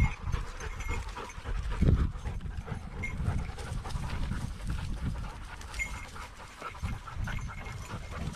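Heavy panting close to the microphone, in irregular breaths, loudest about two seconds in, with faint short high-pitched pips now and then.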